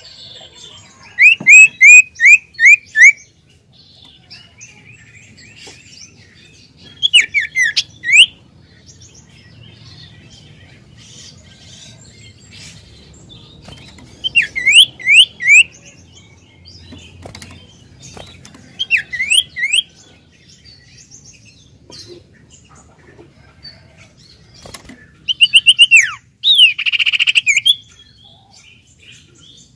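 Common iora (cipow) singing in five short loud phrases spaced a few seconds apart. Each phrase is four to six quick, sharp notes sweeping downward.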